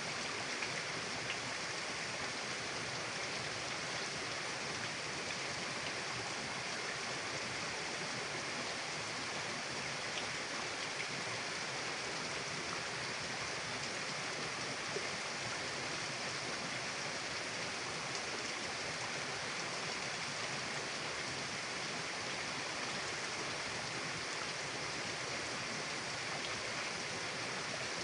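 Mountain river running: a steady, even rush of flowing water with a few faint ticks.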